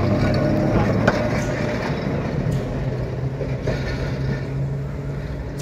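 Electric tram running along the track and drawing away: a steady low hum with wheel-on-rail noise, a sharp click about a second in, fading gradually.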